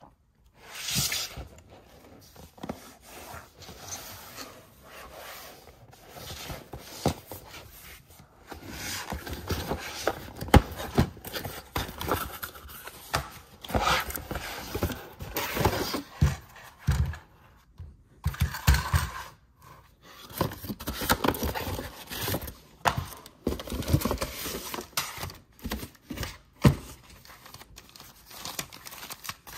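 Hands unpacking a toy playset from a cardboard box: cardboard scraping and sliding, with rustling of plastic wrapping and irregular knocks, one sharp knock near the end.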